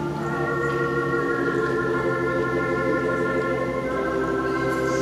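Organ music playing sustained held chords, moving to a new chord every second or two.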